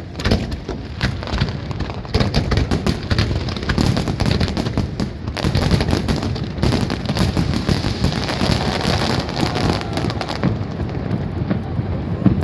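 Fireworks barrage: many rapid bangs running together with dense crackling, easing off a little about ten seconds in.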